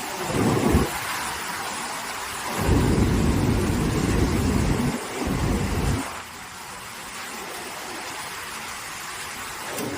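Typhoon rain and wind: a steady hiss of heavy rain, with low rumbling gusts of wind buffeting the microphone, a short one right at the start and a longer one from about two and a half to six seconds in.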